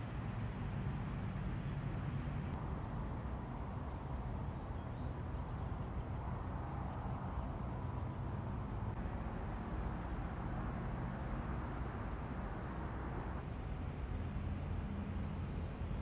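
Outdoor ambience: a steady low rumble, with faint, short, high-pitched bird chirps repeating, more often in the second half.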